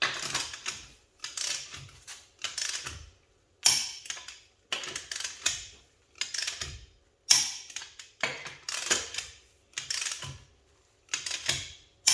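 Torque wrench ratcheting on the wheel lug nuts: bursts of rapid clicking about every second, each burst starting with a sharp click and trailing off, as each nut is brought up to torque.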